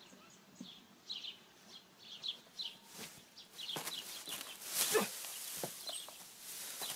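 Small birds chirping in short, falling chirps, repeated throughout. From about three and a half seconds in, louder rustling and crunching of dry hay as bodies drop and roll in it, with a few soft thumps.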